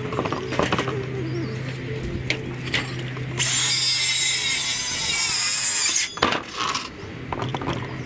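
Makita cordless circular saw cutting through a plywood sheet for about two and a half seconds, starting a little over three seconds in and stopping abruptly. Knocks from the board and saw being handled come before and after the cut.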